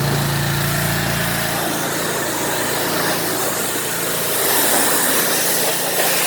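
Small gas engine, most likely the pressure washer's, running steadily, with a broad hiss that grows louder after about a second and a half.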